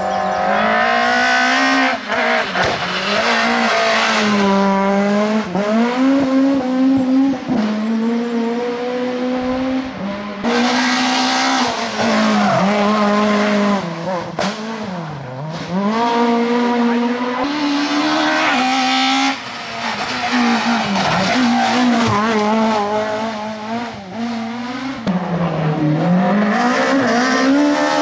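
Peugeot 106 S16 rally car's 1.6-litre 16-valve four-cylinder engine driven hard on a stage. It revs high, its pitch climbing through the gears and falling on lifts and downshifts for the bends, over several passes that cut from one to the next.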